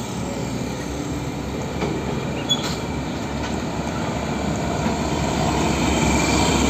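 Hino 500 fuel tanker truck's diesel engine running and its tyres rolling as it drives past close by, a steady rumble that grows louder toward the end as the truck nears.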